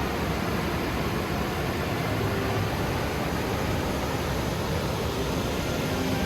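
Steady rush of river water, an even unbroken noise.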